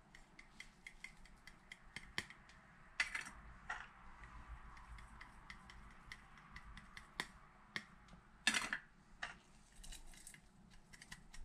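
Light clicks and taps of small spice cups and a fork against a glass mixing bowl as ground spices are tipped in, with a few louder taps about three seconds in and again near eight and a half.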